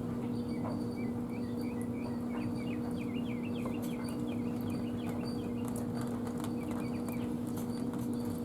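Birds chirping and twittering in quick runs of short notes over a steady low hum, with a few faint clicks.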